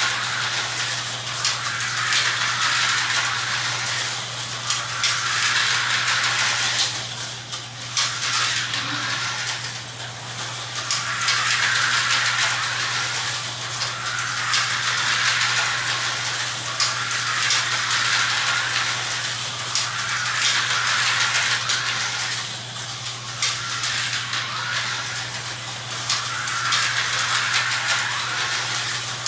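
Vintage Tyco slot cars running laps on a plastic track: the little electric motors whir and the cars rattle along the slotted track. The noise swells and fades about every three seconds as the cars come round past the microphone, over a steady low hum.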